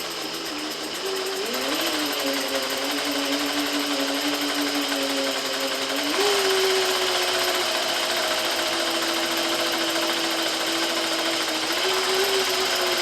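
Juki 8700 industrial sewing machine running steadily under its motor to wind thread onto a bobbin, with a steady whine that steps up in pitch twice, about one and a half seconds and six seconds in, as it speeds up.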